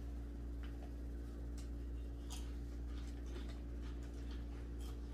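A black pepper shaker being shaken over a bowl of raw chicken, giving a few faint, irregular ticks and taps over a steady low hum.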